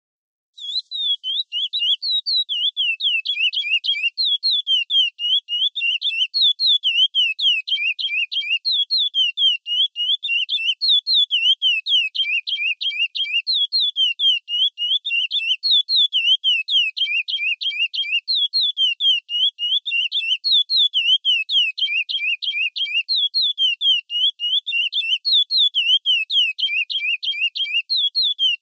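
Curió (chestnut-bellied seed finch) singing the classic 'praia' song: a fast, unbroken run of short whistled notes in repeating phrases, starting about half a second in.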